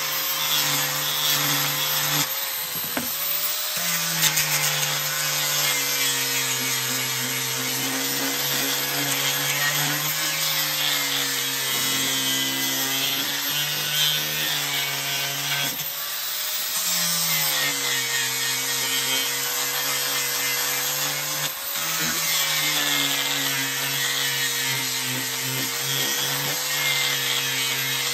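Angle grinder fitted with a sanding disc, running and sanding rough pallet-wood boards. Its steady whine sags in pitch several times as the disc is pressed into the wood and picks back up when eased off.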